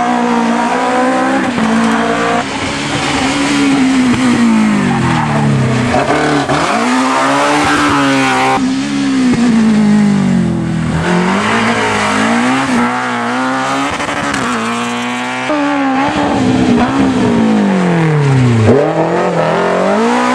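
Rally car engines revving hard through a tight hairpin, one car after another. Each engine's pitch drops as the driver brakes and downshifts into the turn, then climbs steeply as the car accelerates out.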